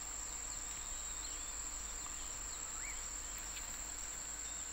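Steady high-pitched insect trill, such as a cricket's or cicada's, running on without a break, with a few faint short chirps from a bird.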